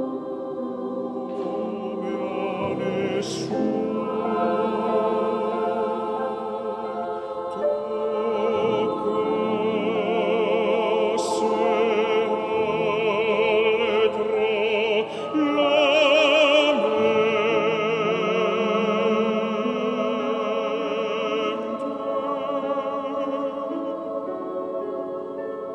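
Classical choral singing: a solo voice with wide vibrato sings high over a choir holding sustained chords. The sound swells to its loudest about two-thirds of the way through, then eases off.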